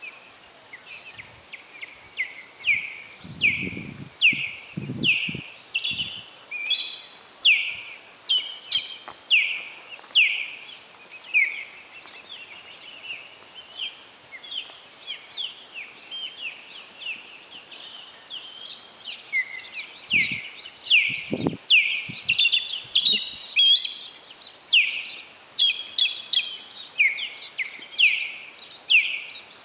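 Ospreys calling: a steady run of short, high, down-slurred whistled chirps, one or two a second. A few brief low thumps come a few seconds in and again about twenty seconds in.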